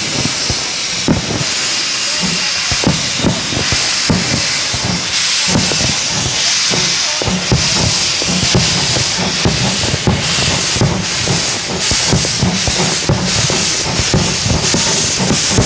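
Steam locomotive pulling away with a steady loud hiss of steam, while fireworks go off overhead in many irregular booms and bangs.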